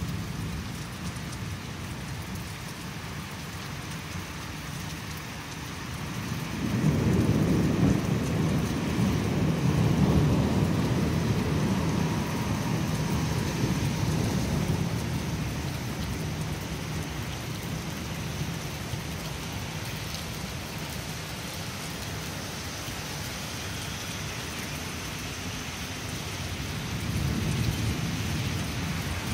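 Thunderstorm: steady rain throughout, with a long rolling rumble of thunder that builds about six seconds in and fades away over the next ten seconds. Another rumble of thunder begins near the end.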